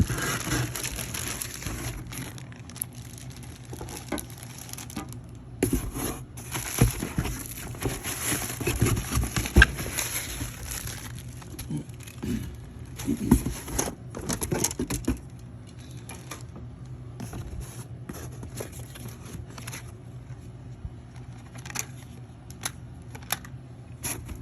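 Packaging of a cold air intake kit being handled and unwrapped: crinkling, rustling and tearing, with scattered knocks and clicks. The handling is busiest for about the first fifteen seconds, then thins to occasional taps.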